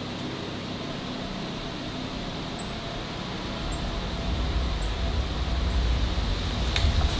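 Steady outdoor hum with a low rumble that builds from about four seconds in and grows loudest near the end. Four faint, short, high bird chirps come about a second apart, and a couple of sharp clicks sound just before the end.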